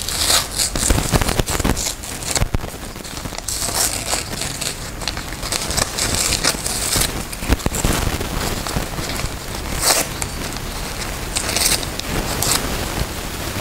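Paper crinkling and tearing as a sealed white envelope is torn open and handled by hand, with irregular rustling bursts.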